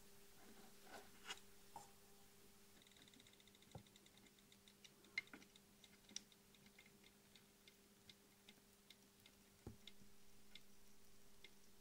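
Near silence with a faint steady hum and scattered tiny clicks and crackles, from rosin flux spitting as a soldering iron tip heats a turret lug, with a short run of fast, even ticks a few seconds in.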